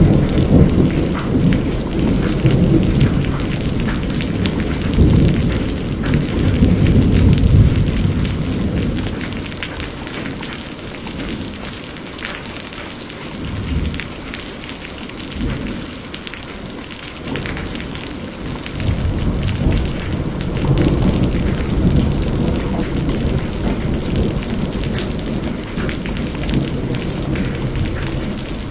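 Steady rain with rolling thunder rumbling underneath. The thunder is loudest at the start, dies down to a lull around the middle, and swells again about two-thirds of the way in.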